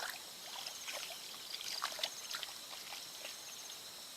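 Water trickling and dripping in small, scattered splashes.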